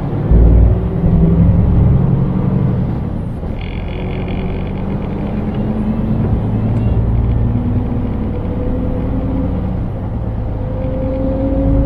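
Scania truck's engine and drivetrain heard from inside the cab, a steady low rumble whose pitch climbs gradually through the second half as the truck picks up speed.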